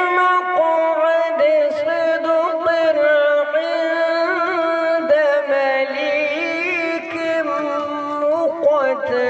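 A male qari reciting the Quran in the slow, melodic tajweed style, drawing out a long ornamented phrase whose pitch wavers and turns.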